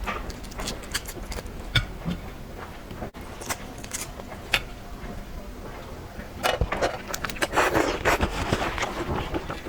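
Red claw crayfish shell being cracked, peeled and eaten: scattered sharp clicks, then a dense stretch of crackling and crunching starting about six and a half seconds in.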